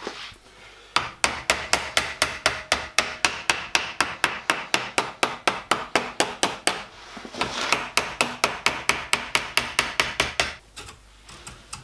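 Hammer striking copper sheet to form a model locomotive's chimney cowl. The blows come fast and even, about four a second, in two runs with a short pause about seven seconds in.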